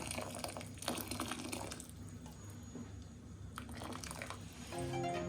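Boiling water being poured into a cooking pan, a splashing pour that dies down about two seconds in.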